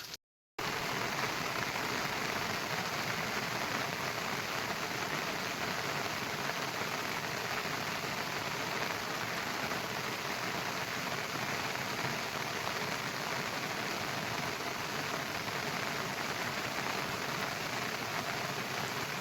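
Heavy rain falling steadily, a dense even hiss that starts abruptly after a brief dead silence and cuts off at the end.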